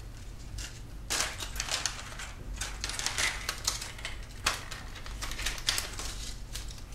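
Thin plastic strips cut from a soda bottle crackling and clicking irregularly as they are handled and pressed flat together.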